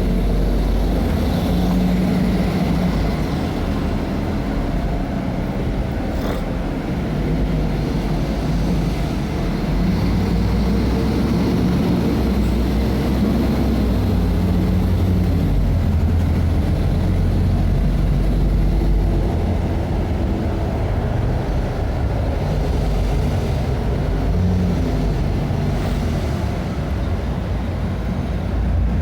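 Mercedes-Benz O500 MA bus's diesel engine running, its low drone shifting up and down in pitch as engine speed changes.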